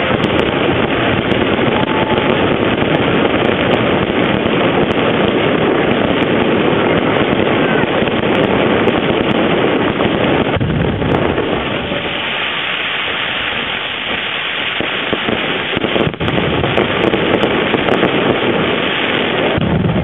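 Fireworks going off in a continuous barrage, a dense unbroken crackle of bursts.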